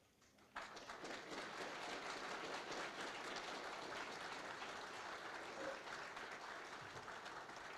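Congregation applauding: a dense patter of many hands that starts suddenly about half a second in, holds steady, then cuts off abruptly.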